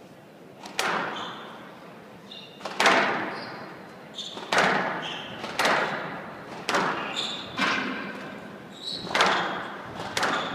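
Squash rally: racket strikes and the ball smacking off the walls of a glass court, about eight sharp cracks a second or so apart, each ringing out in the hall, with short high shoe squeaks on the court floor between shots.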